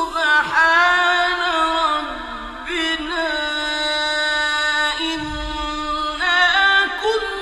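A male reciter chanting the Qur'an in a slow, melodic style, drawing out long ornamented notes that glide and shift pitch several times.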